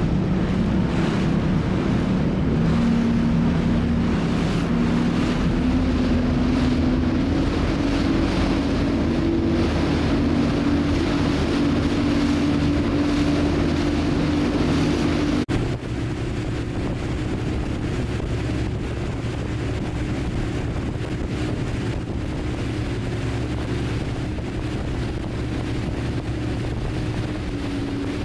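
Speedboat engine running steadily at speed, with wind buffeting the microphone and water rushing past the hull. About halfway through, the sound breaks off abruptly and resumes a little quieter and lower in pitch.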